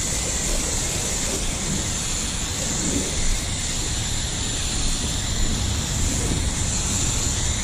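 Foam gun on a garden hose spraying car-shampoo foam onto a car: a steady hiss of water and foam.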